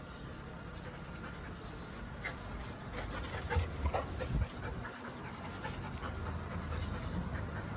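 Golden retrievers panting, with a cluster of short sharp sounds and low thumps in the middle.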